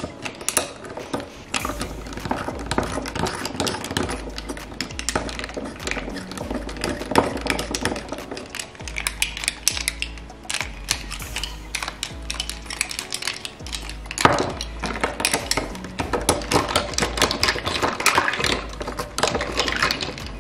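A long metal spoon stirring iced coffee in a glass jar: rapid clinking of the spoon and ice cubes against the glass. Background music with a low bass line plays underneath.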